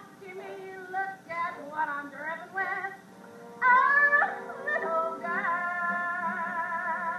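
A woman belting a show tune over a pit-orchestra accompaniment in short, shouted phrases. About three and a half seconds in comes a loud, sudden rising cry, then a long note held with a wide vibrato to the end.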